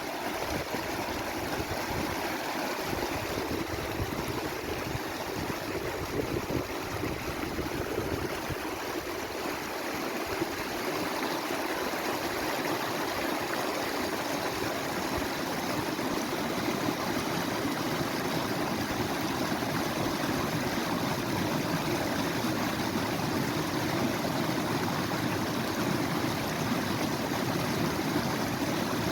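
Flowing water of a stream, a steady rushing that grows a little louder about ten seconds in.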